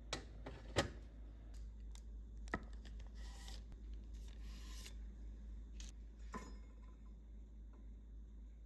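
Food containers and packaging being handled: a few sharp clicks and knocks, and two short rustles around the middle, over a low steady hum.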